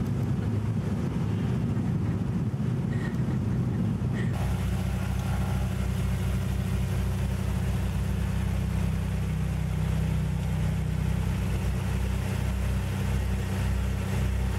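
Cabin noise of a twin-engined plane rolling on the runway: a loud, dense engine roar that changes abruptly about four seconds in to a steadier engine hum with a slow, even throb underneath.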